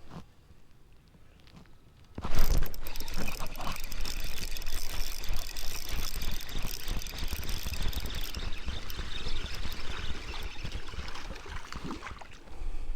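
A loud, rough rushing noise with a deep rumble starts suddenly about two seconds in and carries on unevenly for about ten seconds, then drops away near the end.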